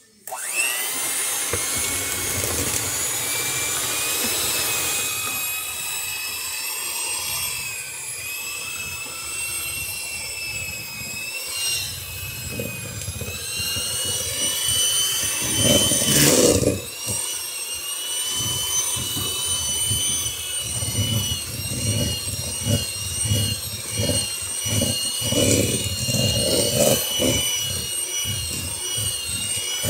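Electric hand mixer switched on and running, its motor giving a high whine that wavers in pitch as the beaters cream butter and brown sugar in a plastic bowl. In the second half irregular knocks from the beaters in the thick mixture join the whine.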